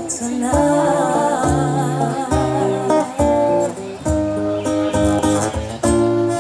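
Background music led by acoustic guitar, with a gentle melody.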